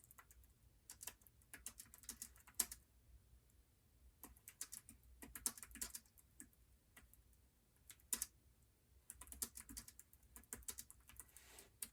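Typing on a Logitech K380 Bluetooth keyboard: faint, quick runs of key clicks in several bursts with short pauses between them.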